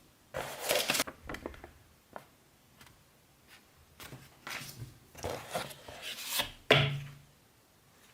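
Close-miked ASMR eating sounds: crisp, crunchy bites and chewing in irregular bursts. A loud cluster comes about half a second in and a run of bursts follows in the second half, ending in one sharp bite.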